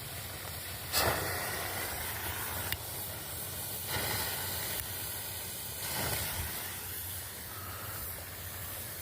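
Several large Brothers Gamma Glow colour sparklers burning with a steady hiss, swelling briefly louder three times.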